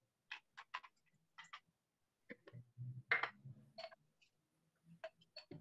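Folded paper slips rustling and clicking against a glass jar as they are handled and mixed for a name draw: a faint string of short, irregular ticks and rustles.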